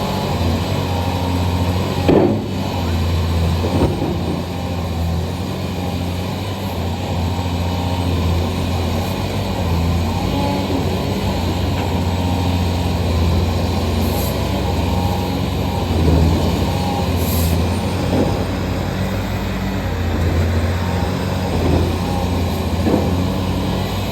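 Caterpillar 320 excavator's diesel engine running steadily, with a few brief louder sounds now and then.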